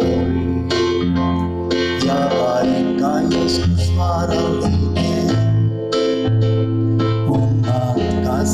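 Music: a keyboard playing sustained electric-piano chords over a steady bass line.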